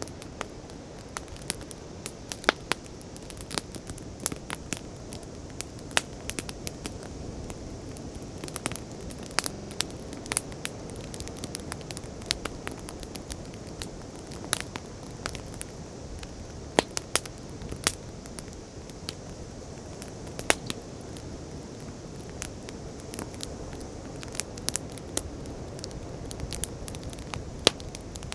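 Wood fire crackling, with sharp irregular pops several times a second over a steady rushing background of sea waves.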